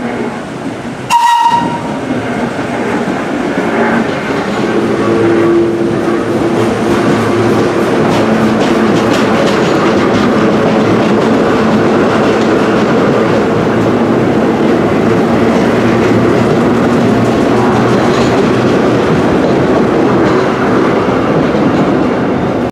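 Vintage New York City subway train sounding one short horn blast about a second in, then running past the platform: a steady, loud rumble of wheels on rails with repeated clicking over the rail joints.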